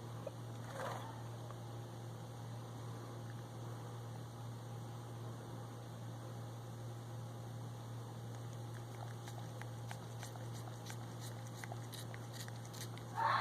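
A domestic cat meowing: a faint short meow about a second in and a louder one right at the end, over a steady electrical hum. A run of light clicks comes shortly before the last meow.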